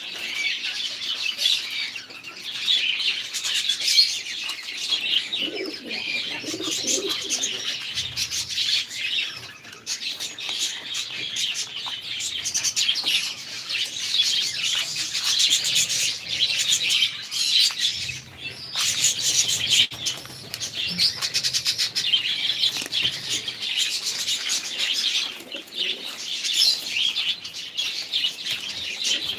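Many small pet birds chirping continuously together, with frequent short flutters of wings.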